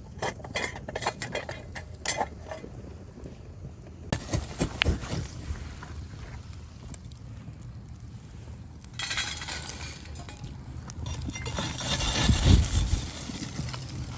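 A string of light clinks and knocks, like cooking utensils handled outdoors, over a steady hiss. The sound changes abruptly about four and nine seconds in, and there is a louder low thump near the end.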